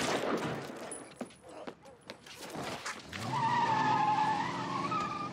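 A single gunshot at the very start, trailing off, followed by a few lighter knocks. From about three seconds in, a pickup truck's engine revs and its tyres squeal in a long, wavering screech.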